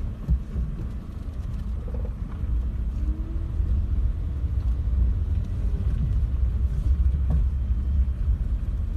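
Low rumble of a Suzuki Swift Sport's engine and tyres heard from inside the cabin as the car rolls slowly along a paved road, growing a little louder a few seconds in.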